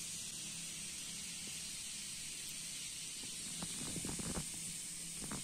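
Foaming rust-removal bath in a plastic bucket fizzing with a steady hiss over a faint low hum. From about three and a half seconds in, small bubbles burst in a run of short crackling pops.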